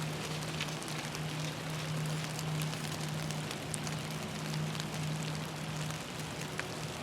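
Rain falling, with scattered drops striking close to the microphone. A steady low hum runs underneath and drops out briefly near the end.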